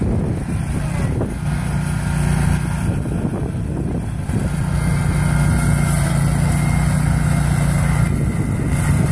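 Zero-turn riding mower engines running as the mowers drive around a course, a steady drone that grows louder from about halfway through as one mower comes close.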